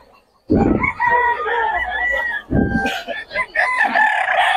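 Roosters (gamecocks) crowing: one long crow starts about half a second in and a second starts about two seconds later, overlapping with other crowing.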